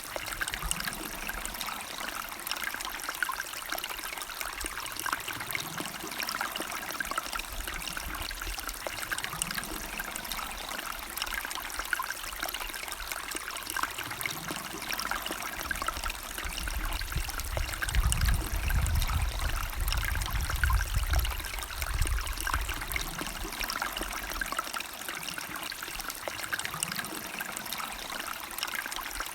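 River water flowing and trickling steadily over stones, with a deeper rumble swelling for a few seconds past the middle.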